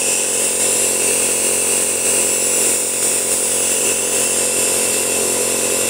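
Compressor nebulizer running steadily: an even motor buzz with a hiss of air driving mist out through the mask.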